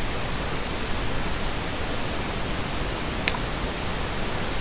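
Steady, even hiss with no other sound, broken once by a single faint click a little past three seconds in.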